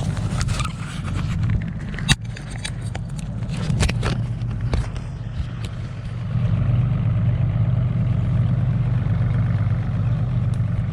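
Boat's outboard engine idling steadily, with a few sharp knocks or clicks about two to four seconds in; the engine note gets louder about six seconds in.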